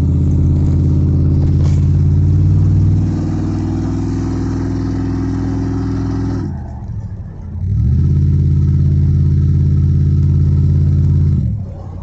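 2002 Ford Expedition V8 held at raised revs, dropping back briefly about six and a half seconds in, then brought up and held again before falling back near the end. Its exhaust runs open where the catalytic converter's flex tube has come off the Y-pipe, an exhaust leak that makes the truck loud.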